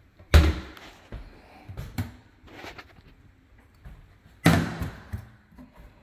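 Oak kitchen cabinet doors being shut: two loud wooden bangs about four seconds apart, with several lighter knocks between and after.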